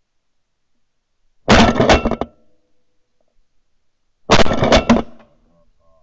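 Two quick volleys of shotgun fire about three seconds apart, each a burst of several overlapping shots from more than one hunter shooting at ducks over decoys.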